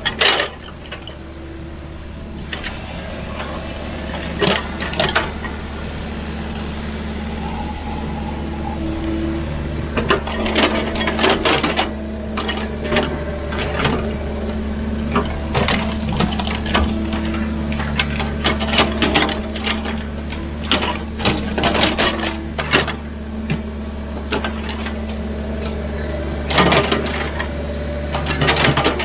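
Excavator's diesel engine running steadily under load, with frequent sharp metallic clanks and knocks that grow busier about a third of the way in.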